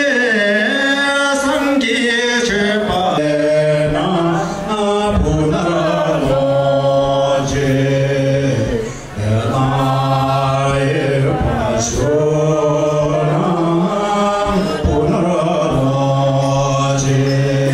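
Men singing a slow, chant-like traditional song together, one voice on a microphone, with long held notes that step from pitch to pitch.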